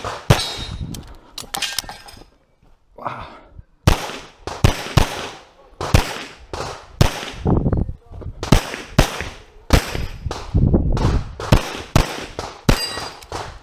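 Handgun shots fired rapidly through a practical shooting course of fire, many as quick pairs with short pauses between strings as the shooter moves between targets.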